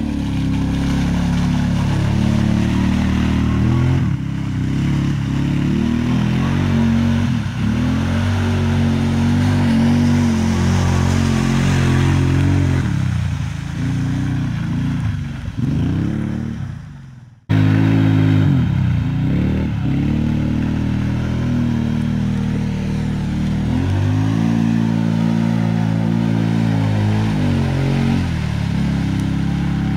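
Side-by-side UTV engine revving up and down as it spins donuts through deep mud. Past the middle the sound fades away, then comes back suddenly at full level.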